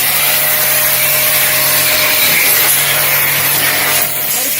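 Portable electric car pressure washer running with its trigger gun held open: a steady motor hum under the hiss of the water jet. The motor hum stops about four seconds in.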